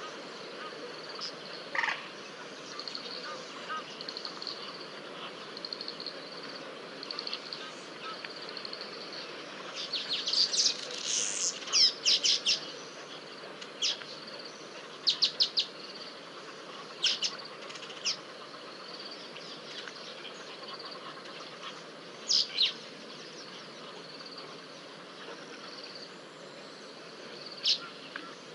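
Wild birds calling: groups of sharp, high chirps, most of them clustered about a third of the way in, with a few more scattered short calls later. Under them runs a steady outdoor hiss, with a faint high buzz in the first third.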